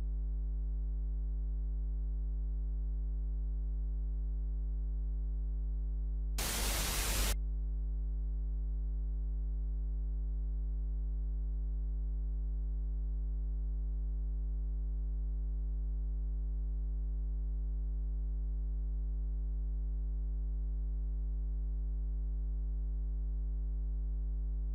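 Steady low electronic hum with a stack of overtones, broken once about six seconds in by a burst of static lasting about a second.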